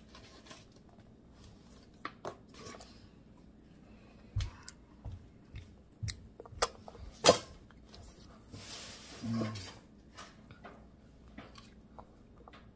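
Quiet handling noises as dragon fruit is peeled and eaten: scattered light clicks and taps, a sharper click about seven seconds in, and a brief rustle near nine seconds.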